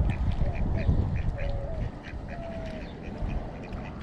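Ducks quacking in a quick series of short calls, thickest in the first couple of seconds and thinning out after.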